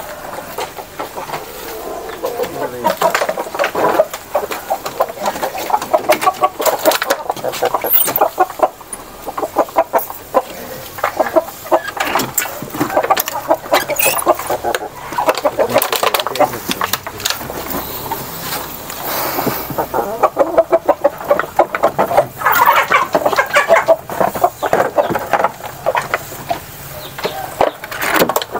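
A flock of Bangkok game chickens, roosters and hens, clucking on and off, with many short sharp clicks among the calls.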